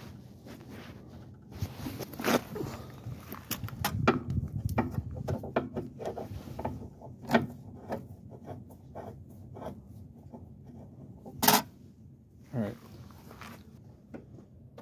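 Hand-tool work on a snowmobile carburetor: irregular clicks, scrapes and rattles of a screwdriver and metal parts being handled, with one sharper knock about three-quarters of the way through.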